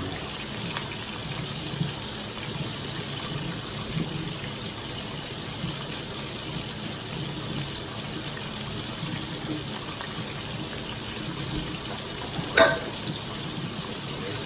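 Kitchen faucet running steadily, with one sharp knock about twelve and a half seconds in.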